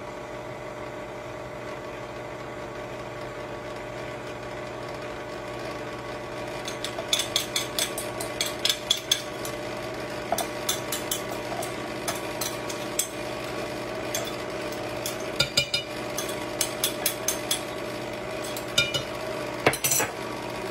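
Electric mixer running steadily, beating buttermilk into a creamed cake batter, with a run of sharp clicks and taps from about seven seconds in.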